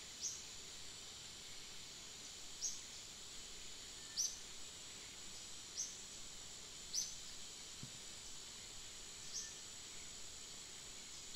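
Steady high insect buzz of an outdoor chorus, with short high chirps, each falling in pitch, repeating every one to two seconds.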